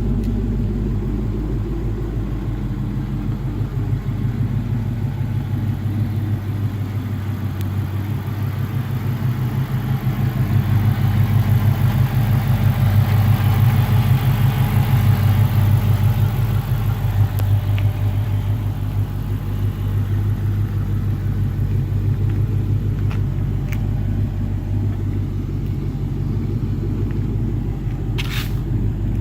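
2006 Dodge Magnum SRT8's 6.1-litre Hemi V8 idling with a steady low rumble, getting louder for several seconds midway; the idle carries a misfire, according to the owner. A brief sharp click near the end.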